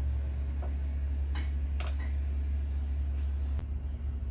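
A steady low hum, with a few faint clicks and scrapes from hands handling the pedal parts while greasing threads.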